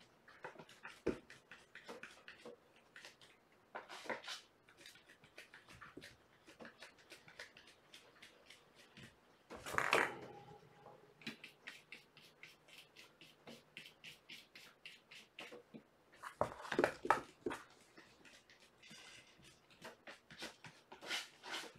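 Kittens playing: a string of small, faint clicks and taps, with louder bursts of knocking about ten seconds in and again around seventeen seconds.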